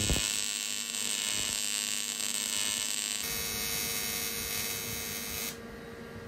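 AC TIG welding arc buzzing steadily while welding the seams of an aluminium tank. The buzz changes character abruptly about three seconds in, then drops to a quieter, duller hum about five and a half seconds in.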